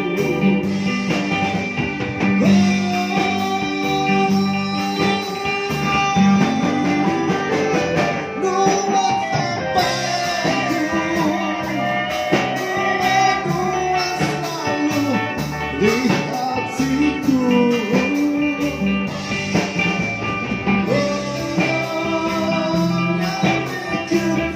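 A live rock band playing a song: a male singer over electric guitars, bass guitar and drums.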